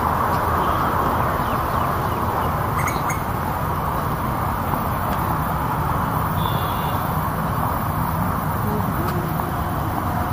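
Steady outdoor background noise, even and unbroken, with a couple of short high chirps about three seconds in and again past six seconds.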